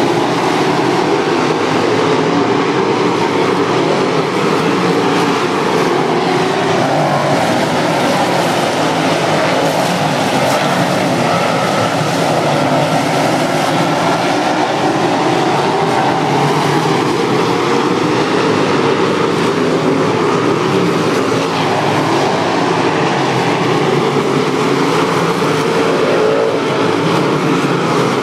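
A field of USAC sprint cars racing on a dirt oval, their V8 engines making a loud, unbroken drone. The pitch rises and falls as the pack sweeps around the track past the listener.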